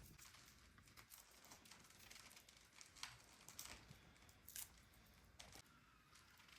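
Near silence with a few faint crinkles and clicks, the sharpest about three seconds in and again a little past the middle.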